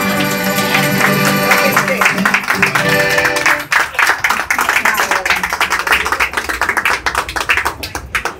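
Tuna ensemble of Spanish guitars and an accordion playing a song, the sustained chords giving way about four seconds in to quick, choppy strumming that stops suddenly near the end.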